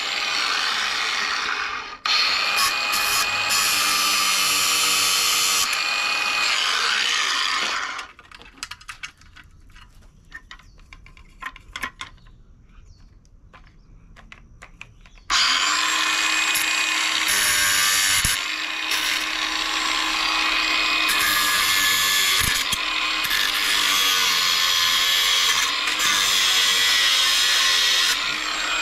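Angle grinder cutting stainless steel. It runs about 8 seconds, stops for about 7 seconds with only light clicks and handling in the pause, then starts again about 15 seconds in, its motor whine steady under the cutting noise.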